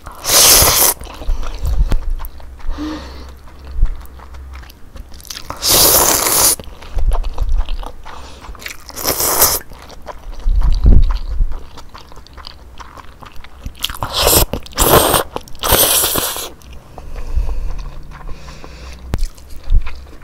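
Close-miked slurping of sauced somen noodles: about six long, loud slurps, three of them in quick succession near two-thirds of the way in, with wet chewing between them.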